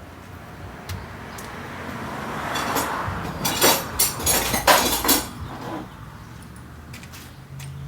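Metal hand tools clinking and scraping, building to a cluster of five or six sharp metallic clanks in the middle, during the job of pushing the brake caliper piston back for new pads.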